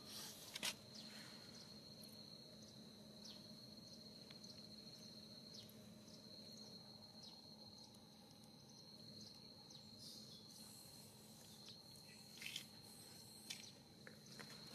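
Faint outdoor ambience dominated by a steady, high-pitched insect drone, like a cricket. A few short faint clicks or chirps come through, two of them near the end.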